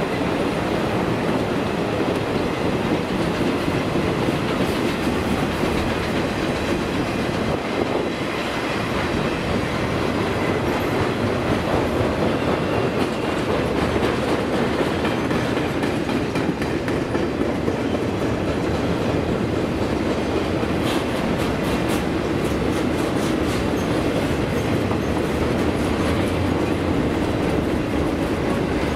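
Circus train's coaches and loaded flatcars rolling steadily past on steel wheels: a continuous rumble with clickety-clack over the rail joints. A run of sharp clicks comes about three-quarters of the way through.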